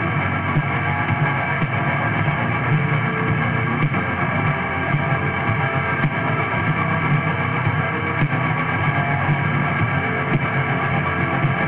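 Raw, lo-fi black metal: a dense, unbroken wall of distorted guitar and bass with drums underneath.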